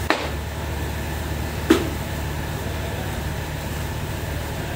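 Two chops of a cleaver through green pepper onto a wooden cutting board, about a second and a half apart, over a steady low mechanical hum.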